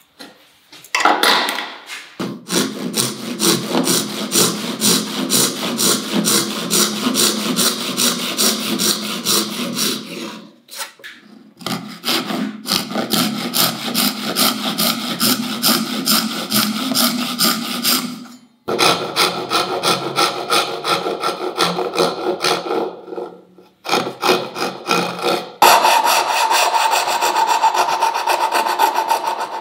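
Hand-sawing a dovetail joint in hardwood. Brief pencil scratching while the lines are marked gives way to a dovetail backsaw cutting down the marked lines in fast, even strokes, in several bouts with short pauses. Near the end a coping saw cuts out the waste between the tails, its strokes carrying a steady ringing tone.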